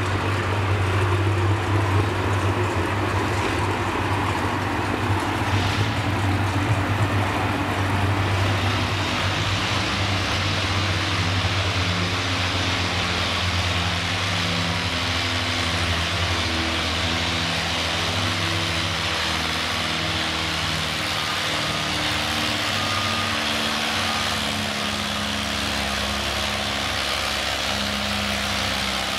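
Farmall MTA tractor's four-cylinder engine running steadily under heavy load while pulling a weight-transfer sled, a deep continuous drone with shifting higher tones over it.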